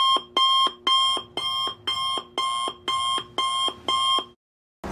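Electronic alarm-clock style beeping: about nine short, evenly spaced beeps, roughly two a second, each a steady multi-tone chirp, stopping just before the end.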